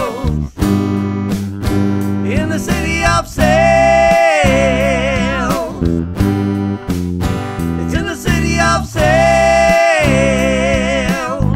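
A song: a voice singing long held notes with vibrato over strummed acoustic guitar.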